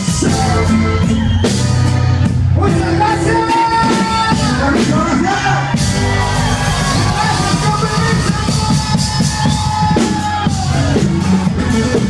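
A live regional Mexican band plays loudly with singing and a drum kit, heard close to the stage, with shouts from the crowd.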